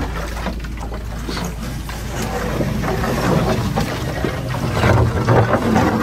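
Small wooden boat being poled through shallow water between bushes: water sloshing, rustling and knocks from the pole and hull, louder about four to five seconds in, over a steady rumble of wind on the microphone.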